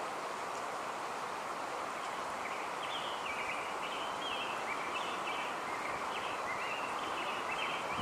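Outdoor ambience: a steady rushing background noise, with a small bird chirping in short repeated notes from about two and a half seconds in.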